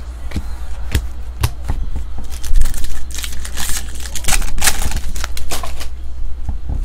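Trading cards being handled and flicked, with sharp clicks and snaps. In the middle comes a longer spell of crinkling and tearing as a foil card pack is ripped open.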